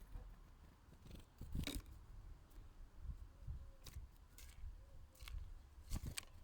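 Small garden birds at a feeder close to the microphone: about seven sharp, irregular taps and clicks of beaks pecking and feet landing, over a low rumble.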